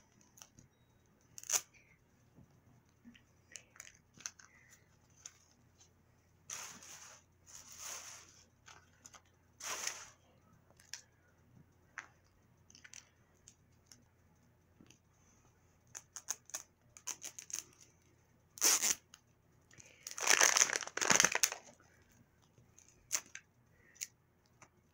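Wrapper layers of an L.O.L. Surprise toy ball being torn and crinkled by hand in short, irregular bursts with scattered clicks. The longest and loudest tearing comes about three-quarters of the way through.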